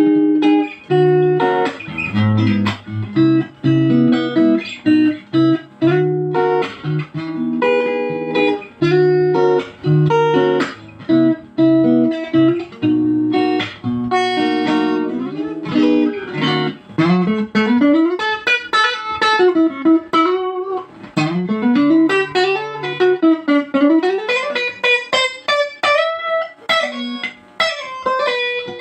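Sunatone SG electric guitar played on a clean tone. For about the first sixteen seconds it plays chords over low bass notes. After that it plays quick single-note runs that climb and fall.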